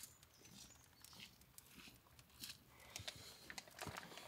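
Near silence, with faint, scattered small ticks and rustles.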